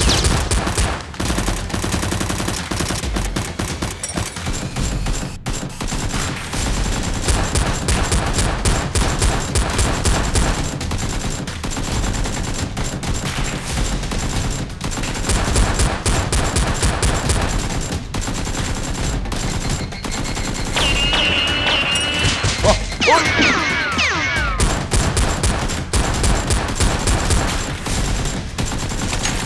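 Sustained rapid gunfire, long bursts of automatic fire overlapping with no break. About two-thirds of the way through, a wavering high-pitched sound rises over the shots.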